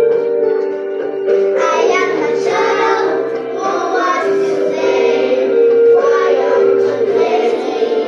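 A group of young girls singing together over a musical accompaniment that holds steady, sustained notes.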